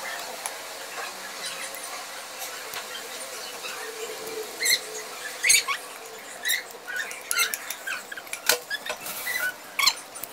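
Spatula scraping chocolate cake batter from a glass bowl into aluminium cake pans: a run of short squeaks and clicks, thickest in the second half.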